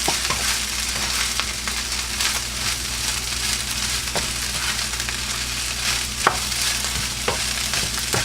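Chicken fried rice sizzling in a hot pan as it is stirred, with a steady frying hiss. The spatula clinks against the pan now and then, most sharply about six seconds in.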